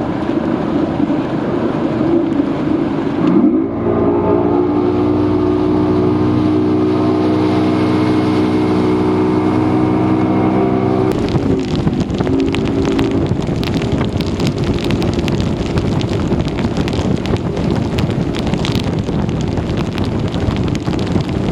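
Bass boat's outboard motor running under way: it rises in pitch about three seconds in, then holds a steady drone. About halfway through, a harsh crackling rush of wind on the microphone takes over and masks the engine.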